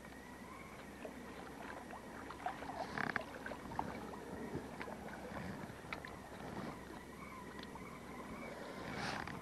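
Shallow water lapping and splashing, with scattered small clicks and knocks and a couple of louder splashes, about three seconds in and near the end.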